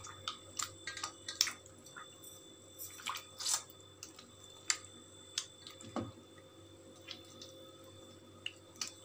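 Hands squeezing and kneading wheat-flour dough under water in a steel bowl, washing the starch out of it: irregular wet splashes and drips, busiest in the first few seconds and sparser after.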